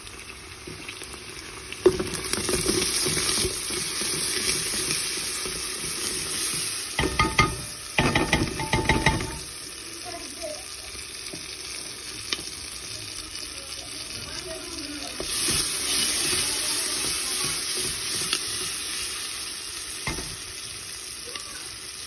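Onions, garlic and tomato paste sizzling in hot oil in a stainless steel pot while a spatula stirs them. The sizzle gets louder about two seconds in, and a quick run of scraping and clicks against the pot comes about seven to nine seconds in.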